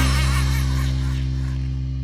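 Background music: a low held chord ringing on and slowly fading away.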